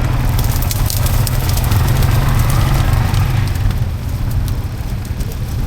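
ATV engine running under load, with water and mud splashing and crackling around it. It is loudest for the first three to four seconds, then eases off.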